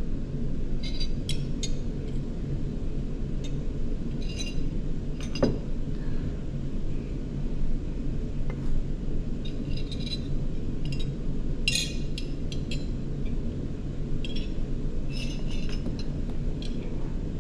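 Scattered light clinks of a glass drinking jar being handled and drunk from, with one sharper knock about five seconds in, over a steady low hum.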